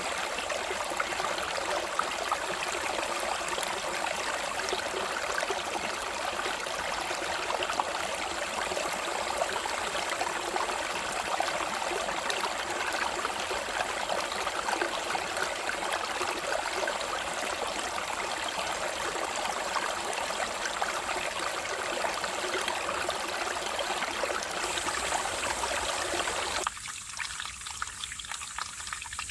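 Mountain stream flowing steadily over rocks. Near the end it cuts abruptly to a quieter, thinner trickle.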